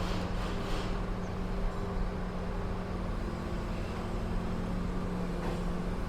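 An engine running steadily with a low hum, with a few faint knocks, about the start and again near the end.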